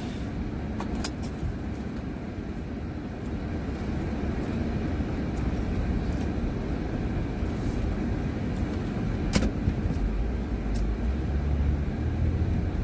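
Car engine and road noise heard from inside the cabin, a steady low rumble, with a few sharp clicks, the clearest about a second in and near nine seconds.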